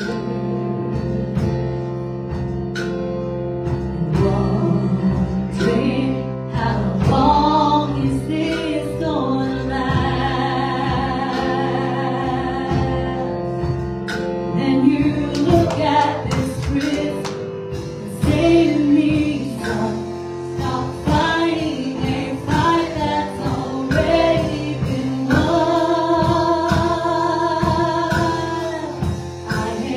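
A live gospel worship song: voices singing a melody over sustained keyboard chords, with a drum kit and cymbal strikes keeping the beat.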